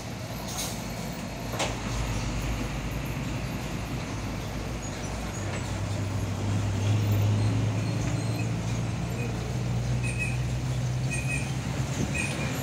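Heavy goods trucks passing at low speed, their diesel engines droning low and steady and swelling louder past the middle as one comes close. A couple of sharp clicks sound early on, and a few faint short chirps near the end.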